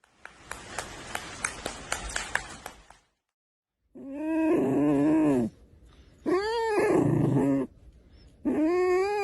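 About three seconds of rustling with sharp clicks, then, after a short gap, three long drawn-out animal cries, each about a second and a half, wavering up and down in pitch.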